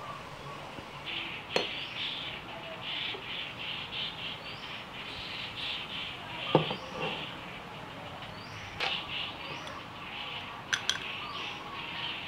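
Birds chirping in a steady, rhythmic chorus, with a short rising call repeating about every three seconds. A few sharp clinks of glass or dishware come through, the loudest about six and a half seconds in, and two close together near the end.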